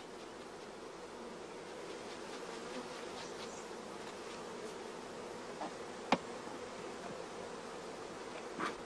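Swarm of honeybees buzzing in a steady hum as bees are brushed off a brood frame. A single sharp click sounds about six seconds in.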